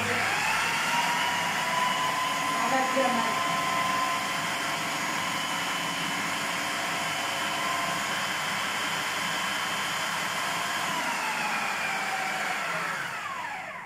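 Electric blender motor grinding ta'meya (falafel) paste of beans and herbs: it starts abruptly, runs at a steady high whine, then slows with falling pitch and stops near the end.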